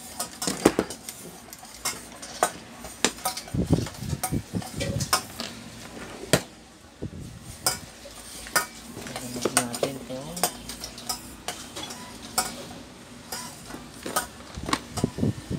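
Irregular clicks, taps and clatter of an electric fan's motor assembly and hand tools being handled and set down on a workbench, plastic and metal parts knocking together.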